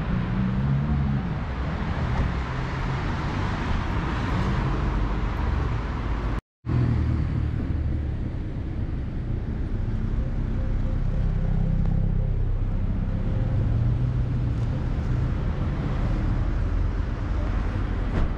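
Road traffic on a city street: cars running and passing, a steady low noise that swells and eases. The sound cuts out completely for a moment about six and a half seconds in.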